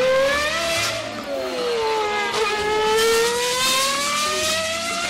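Engine-revving sound effect: a motor's pitch sinks about halfway through, then climbs again as it accelerates.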